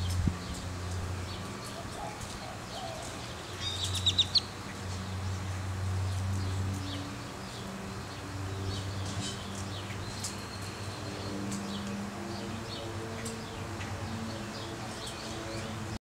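House sparrows chirping, with a quick run of loud chirps about four seconds in and scattered single chirps after. A low hum runs underneath.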